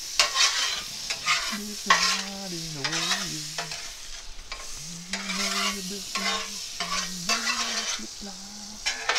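Butter sizzling on a hot steel griddle plate while a metal spatula scrapes and taps across it in quick, irregular strokes. A man's low voice hums a few held notes in between.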